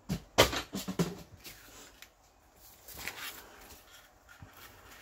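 Paper and card being handled on a cutting mat: a sharp knock as a piece is set down about half a second in, with rustling and clicks, then a softer rustle of paper about three seconds in.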